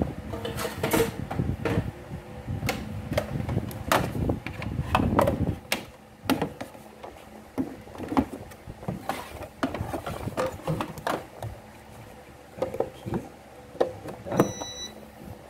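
Irregular knocks, bumps and plastic clicks as a bread machine and a bench test box are handled and set up on a workbench. Near the end comes one short electronic beep from the Mondial Premium NPF-51 bread machine as it is powered on.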